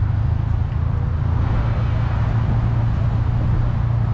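Lifted Ford F-150 pickup's engine running at low speed as the truck creeps across the lot, a steady low hum.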